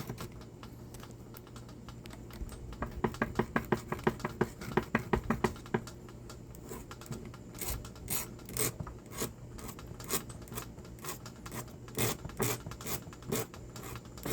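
A hand file rasping back and forth over a burred screw head to take off the burr. There is a quick run of strokes from about three seconds in, then slower strokes about twice a second.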